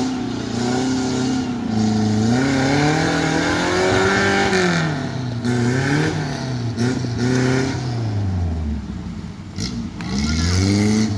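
Suzuki Jimny 4x4's engine revving up and down under load as it crawls up a steep muddy bank, its pitch rising and falling with the throttle. The revs drop low about eight seconds in and pick up again near the end.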